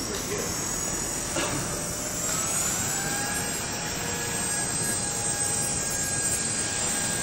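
Walkera 4G6 micro RC helicopter's electric motors and rotors whining. The high whine climbs in pitch as the rotors spool up and holds steady from about three seconds in, with a second, lower tone rising partway through.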